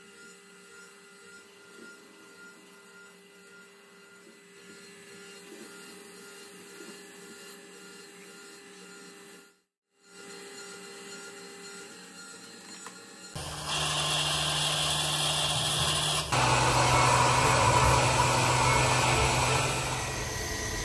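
Small metal lathe running with a steady, fairly quiet whine. After a brief gap it comes back, then turns much louder and harsher in two sudden steps in the second half.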